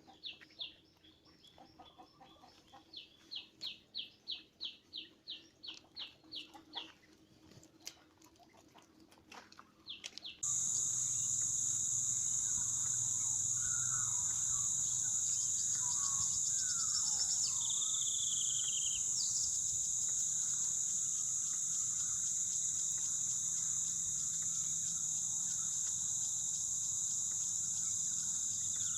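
A bird calling a quick run of evenly repeated high notes, about two a second, with faint fowl sounds under it. About ten seconds in the sound cuts to a loud, steady, shrill chorus of insects, with a few bird calls over it.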